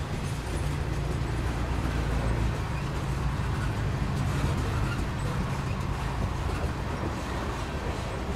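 Steady low rumble of passing vehicles, a little louder in the middle, with no distinct clanks or squeals.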